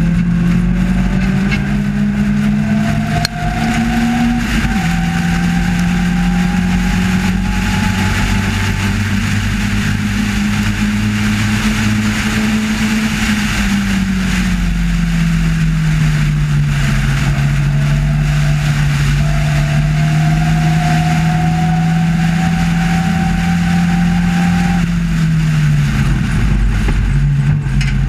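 Race car engine heard from the open cockpit under hard driving: its pitch climbs, drops sharply with a gear change a few seconds in, climbs again, then sinks and holds lower for a long stretch before dropping again near the end. Steady wind rush over the open cockpit runs underneath.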